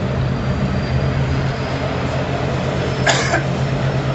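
Boat engine running with a steady low drone and hum. A short harsh burst cuts across it about three seconds in.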